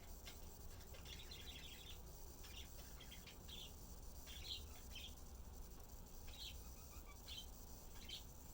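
Faint birdsong: short, high chirps every second or so, with a quicker twittering run about a second in.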